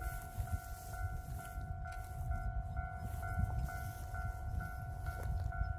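Railway level-crossing alarm ringing steadily, a two-tone electronic chime repeating about twice a second, which signals an approaching train. There is a steady low rumble underneath.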